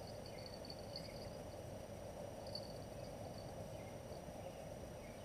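Quiet riverside ambience: a steady low background hum with faint high chirping that comes and goes.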